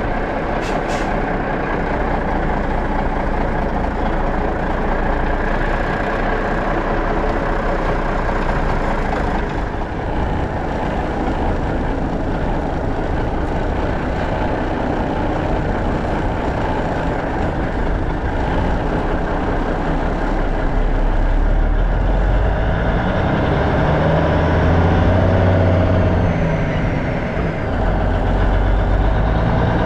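The 1984 Freightliner cab-over's Cummins diesel engine running as the truck drives down a gravel road, under steady tyre and wind noise on the outside-mounted microphone. Over the last several seconds the engine note rises and falls a few times.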